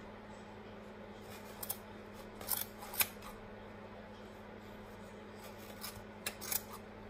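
Scissors snipping through yarn while trimming a pom-pom: several short, sharp snips in a cluster about two to three seconds in, and another cluster near the end.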